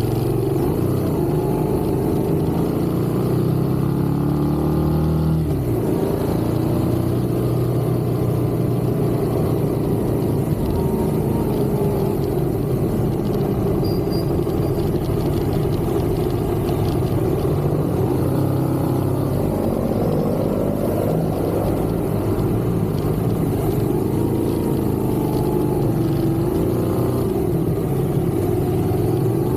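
Motor vehicle engine and road noise heard on the move, steady throughout; the engine pitch climbs for a few seconds and then drops abruptly about five seconds in, then rises and falls more gently.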